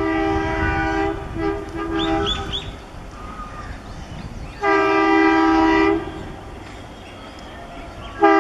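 Diesel locomotive air horn sounding on a steady chord: a long blast ending about a second in, a short toot, a second blast of about a second and a half in the middle, and a third beginning at the very end. A low rumble of the train runs underneath.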